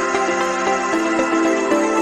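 Electronic music: a melody of held synthesizer notes changing every few tenths of a second, with no bass.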